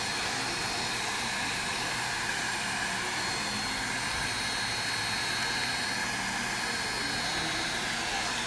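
Heat gun blowing steadily, an even rush of air with a thin high motor whine, heating the adhesive under an iPad mini's digitizer glass to soften it.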